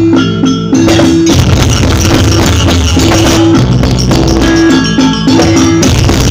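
Loud accompaniment music for a Janger dance: a percussion-driven ensemble with drums, held melodic notes and a strong bass line.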